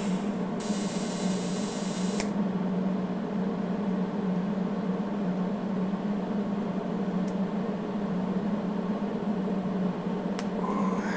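TIG (argon) welding on a small steel knife part, filling a hole: a loud hiss from about half a second to two seconds in, over a steady hum that runs throughout.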